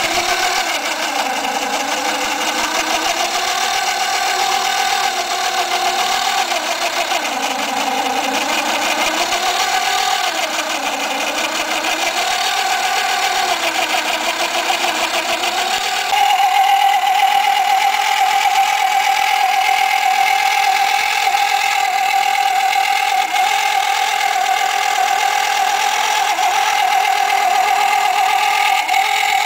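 Small electric motor and gearing of a homemade tracked model tractor running with a steady whine. For the first half its pitch wavers slowly up and down; about halfway through it gets a little louder and holds one steady pitch.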